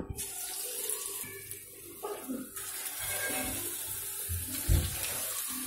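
Small balls of rice-flour batter sizzling in hot oil in a kadai as they are dropped in by hand. The hiss grows louder about halfway through as more batter goes in, and there is a soft thump near the end.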